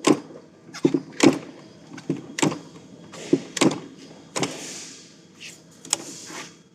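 Hand-lever cold pressure welding machine clacking as its handle is pumped back and forth, the dies gripping and upsetting the wire ends to butt-weld a thin wire. About ten sharp metallic clacks, often in pairs, roughly one stroke a second.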